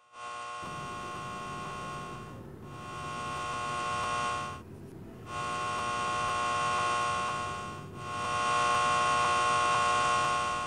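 A steady electrical-sounding buzzing hum with a strong high tone. It swells and fades in waves, dipping briefly three times, the second dip the longest.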